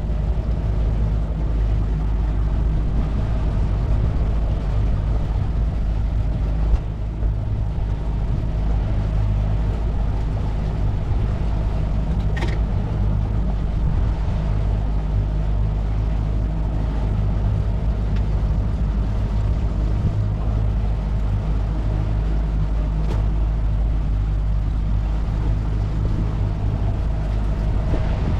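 Outboard motor of a 16-foot jon boat running steadily under way, a constant low drone over a rushing haze.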